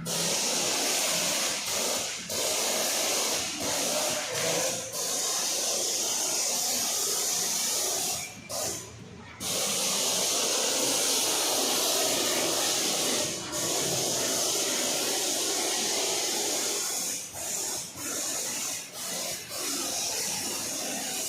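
Foam spray gun hissing as wash foam is sprayed onto a motorcycle, in long spells broken by short gaps, the longest about eight seconds in.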